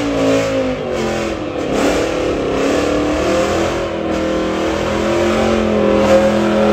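Ford Mustang doing a burnout: the engine is revved up and down at first, then held at steady high revs while the rear tyres spin and smoke, with a hiss of tyre noise under the engine.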